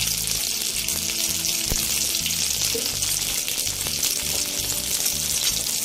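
Jackfruit seed paste frying in hot oil in a kadai, a steady sizzle.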